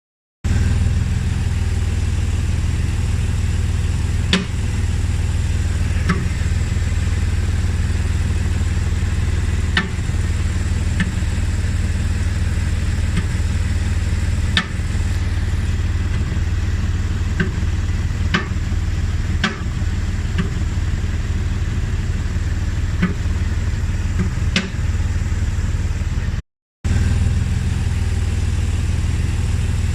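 BMW E60 running steadily, with a sharp knock every few seconds at irregular intervals over the steady hum; the cause of the knock is unknown to the owner.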